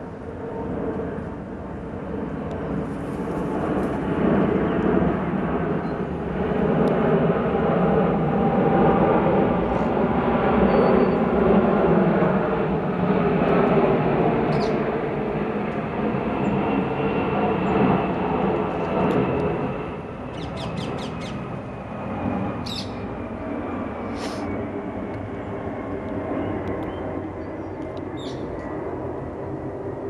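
A loud rumble of a passing vehicle swells to a peak about ten seconds in, then fades slowly, with a faint whine sliding down in pitch through the second half. Several short bird squawks and a quick rattling chatter, typical of a magpie, sound over it in the second half.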